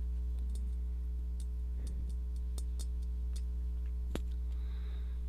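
Steady low electrical hum with a few faint scattered ticks and one sharper click about four seconds in.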